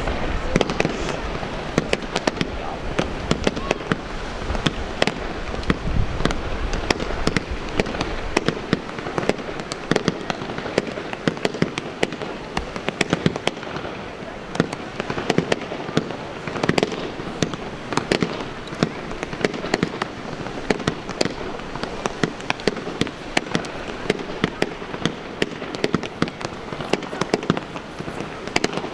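Aerial fireworks display: a dense, continuous run of bangs and crackles from bursting shells, with heavier, deeper booms in the first several seconds.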